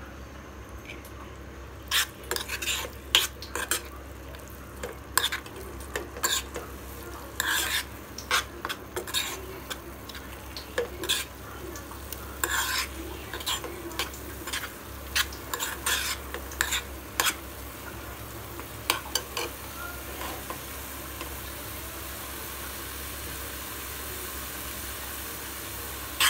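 Metal spoon stirring and scraping ivy gourd chutney in a kadai over a sizzling fry. The scrapes and clinks come in quick irregular strokes from about two seconds in until past the middle; after that only the steady sizzle goes on.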